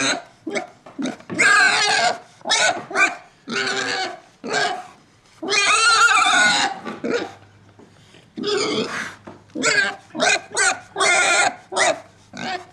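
Pigs grunting and squealing in a rapid series of short calls, with a few longer drawn-out squeals.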